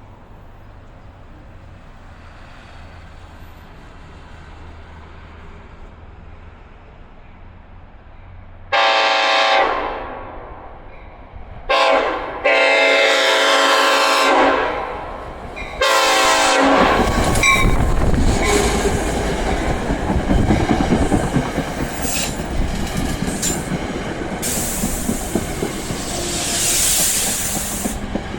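Unrestricted raised-letter Nathan K5LLA five-chime air horn on NJ Transit cab car 6012, sounded loud in four blasts, the third the longest. The train then passes close by, its wheels clicking over the rail joints, with a loud hiss near the end.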